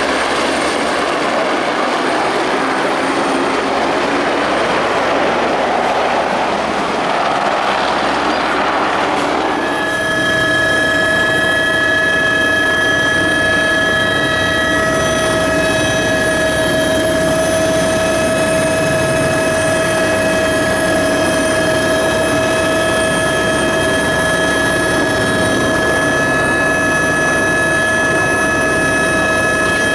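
Helicopter flying past low overhead, a loud rushing rotor and engine noise that swells toward about nine seconds in. From about ten seconds in, a helicopter is heard from inside its cabin: a steady turbine whine in several high tones over the rotor's hum.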